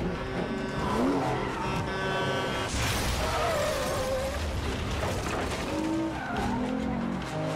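Car-chase sound effects: sports-car engines revving hard at speed, with tyres squealing and skidding. A sudden loud burst of noise comes about three seconds in.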